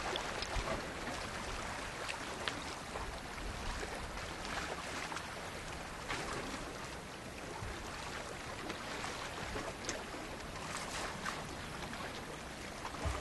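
Lake water lapping: a steady wash with many small irregular splashes and ticks.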